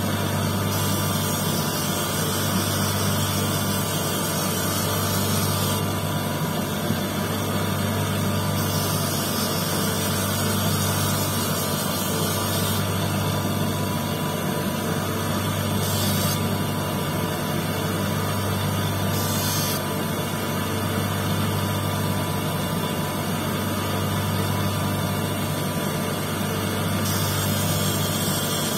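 Electric motor of a lapidary wheel running steadily with a constant low hum, its flat disc spinning while a quartz stone is cut.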